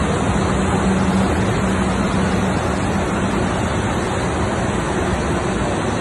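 Steady rushing industrial noise of a running flat glass tempering furnace line, its blowers and roller drives going, with a low hum under it that fades about halfway through.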